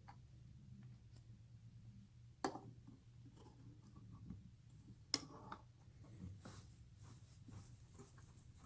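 Faint handling of a hand shotshell reloading tool: small clicks and scrapes, with two sharp knocks about two and a half and five seconds in, as the final crimper seats the crimp on a 12-gauge shell.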